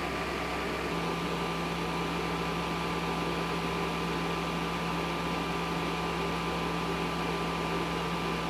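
Portable induction cooktop running under a pot: a steady fan hum with a whine of fixed tones, a low tone growing stronger about a second in. The cooktop is loud enough that the cook had turned it off earlier because of the noise.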